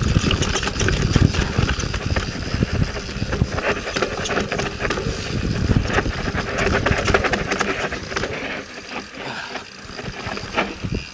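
Yeti SB 4.5 mountain bike riding down a rough dirt trail: tyres on dirt and rock, with the bike rattling and clicking over the bumps and wind buffeting the microphone. It gets quieter about eight seconds in, with the wind rumble dropping away.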